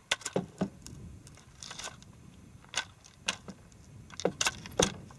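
A series of short, sharp clicks and knocks at irregular intervals, some in quick pairs near the start and near the end.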